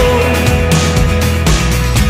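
Rock song playing: a full band with drums and bass, between sung lines.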